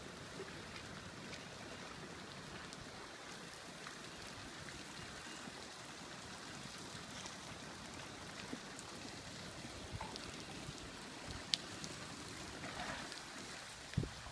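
Creek water running thick with broken ice floes: a steady rushing hiss with scattered small ticks and clicks of ice pieces touching, and a sharper click about three-quarters of the way through. A couple of low thumps near the end.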